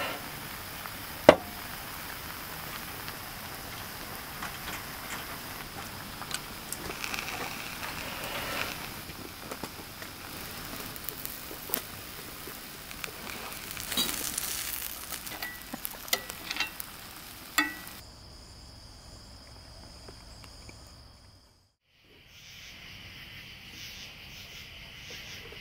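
Food sizzling and crackling as it cooks, with scattered sharp clicks, over a steady high insect drone. About 18 seconds in, it changes abruptly to insects chirping alone, drops to near silence for a moment, then a different steady insect chorus comes in.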